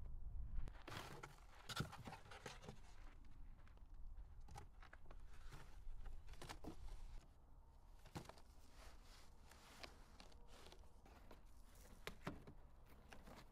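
Cardboard boxes rustling and scraping as they are handled and set down on sandy ground, with scattered footsteps. Quick, irregular clicks and rustles, busier in the first half and fainter after about seven seconds.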